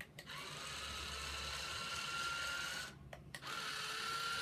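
Toy-grade RC skid-steer loader's small electric motors and plastic gears whining with a steady high tone that rises slightly. It stops about three seconds in and starts again half a second later.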